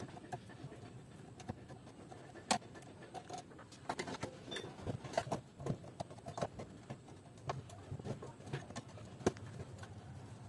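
Hand screwdriver working screws out of a DVD player's sheet-steel case: scattered light metallic clicks and taps at an uneven pace, the sharpest about two and a half seconds in and again near the end.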